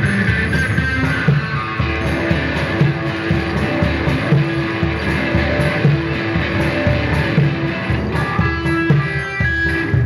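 Live instrumental music: an electric guitar repeats a plucked, droning figure over steady low percussion beats.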